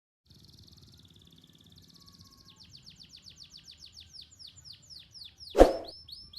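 Canary singing: a fast buzzing trill, then a run of quick downward-sweeping whistled notes at about four or five a second. A single loud knock comes near the end.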